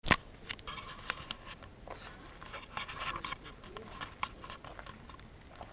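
Handling noise from a small action camera being moved: a sharp knock at the start, then irregular scraping, rubbing and clicking close to the microphone.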